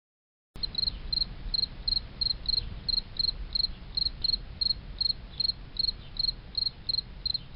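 An insect chirping, a regular high chirp about three times a second, cutting in suddenly about half a second in over a faint low rumble.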